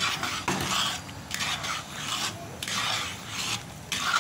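Metal spoon scraping the bottom of a heavy pan while stirring thick wheat halwa, in rhythmic strokes about once a second. The halwa has reached its set consistency and is being stirred continuously so it does not stick.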